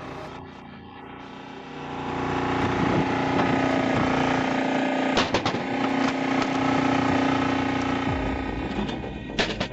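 Engine-driven machine running with a steady hum, louder from about two seconds in, with sharp knocks around the middle and again near the end.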